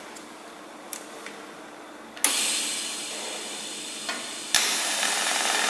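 TIG welding torch starting up: a steady hiss starts with a sharp click about two seconds in, then the arc strikes about four and a half seconds in and a louder, crackling hiss carries on. The machine is in pulse mode with the pulse frequency just lowered, so the arc pulses are spaced further apart.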